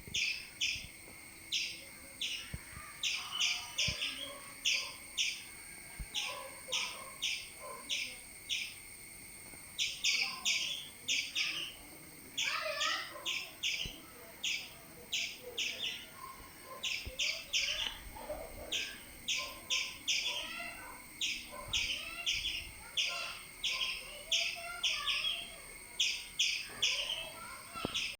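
Squirrel alarm chirping: short, sharp calls repeated in quick runs of two to four a second with brief pauses between runs, the warning call a squirrel gives at a cat. Fainter chirps and warbling sit underneath.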